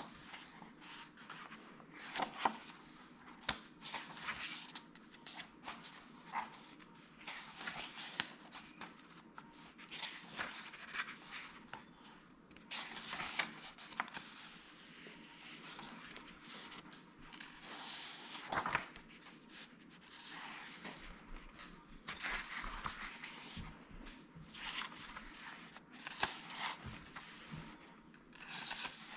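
Pages of a paperback book being turned one after another: repeated short papery swishes and rustles every second or two, with hands brushing over the paper and the odd soft tap.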